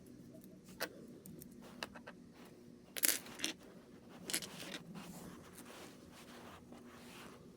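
Small plastic model-kit parts being handled and snapped together: scattered sharp clicks and short scrapes, loudest in a cluster about three seconds in.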